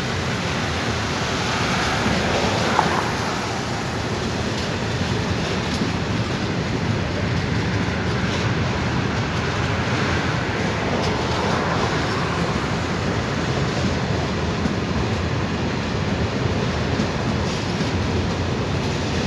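Freight train wagons rolling past on the rails: a steady rumble of steel wheels with faint clicks at the rail joints, and one short sharp clank about three seconds in.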